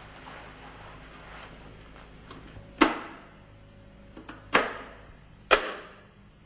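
Three sharp, loud clacks, about a second or so apart, each with a brief echo, over a low steady room hum.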